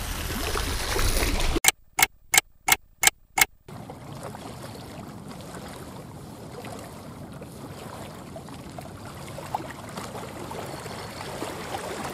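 Small waves lapping on a rocky lake shore, with a steady wash of water and wind. About two seconds in there is a quick run of six short, sharp clicks, evenly spaced, with the background cutting out between them, and after them the wash carries on more quietly.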